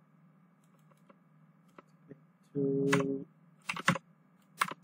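Keystrokes on a computer keyboard: faint scattered clicks at first, then a few sharper key clicks in the second half. A short, steady held 'mm' from a person's voice comes about two and a half seconds in.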